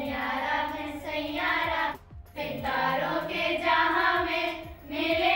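A group of girls singing together in held, sustained notes, breaking off briefly about two seconds in before singing on.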